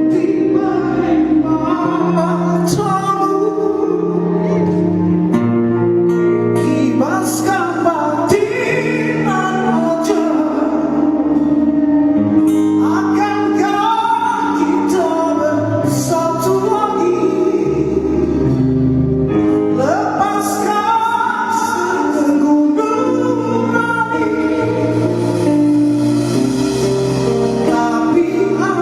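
A rock band playing a song live at a sound check, with a lead vocal singing a melody that slides between notes over guitar, bass and drums, loud and continuous.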